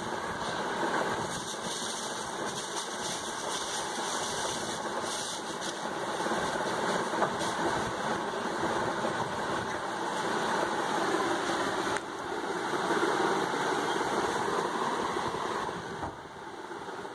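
Steady background din of engines running, like motor traffic, with no single event standing out.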